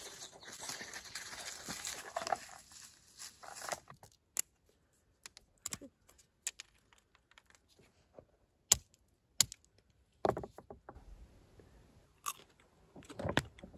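Almond shells being cracked open on a limestone rock: a series of short, sharp cracks and knocks, about eight spread over ten seconds, after a few seconds of rustling at the start.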